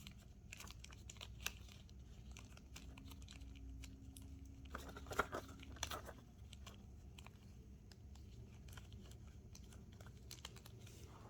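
Latex balloons being handled by hand: faint scattered clicks and rubbery rustling, with a short burst of squeaky rubber rubbing about five seconds in.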